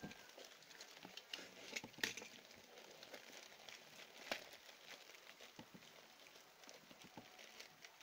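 Faint rustling and crinkling of a plastic courier mailer bag being torn open and pulled off a cardboard box, with sharper crackles about two seconds in and again just past four seconds.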